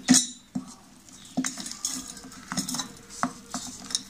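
Roasted peanuts and crushed jaggery being put by hand into a stainless steel mixer-grinder jar: a string of light clicks and rattles of nuts against the steel, the loudest right at the start.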